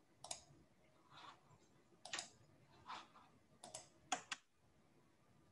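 About half a dozen faint, irregularly spaced clicks and taps of computer keys or a mouse, some in quick pairs, heard over a video call.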